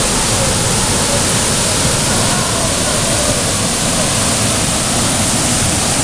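Waterfall pouring into a pool: a loud, steady rush of falling water.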